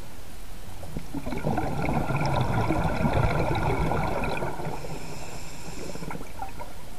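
Scuba diver's exhaled breath bubbling out of a regulator underwater: a rush of bubbles starting about a second in and lasting about five seconds, with faint whistling tones, over a steady low water hiss.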